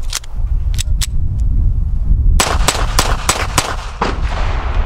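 A magazine clicks into a stainless Smith & Wesson Model 2206 .22 LR pistol. About two and a half seconds in, the unsuppressed pistol fires six or seven quick shots in a rapid string. Wind rumbles on the microphone underneath.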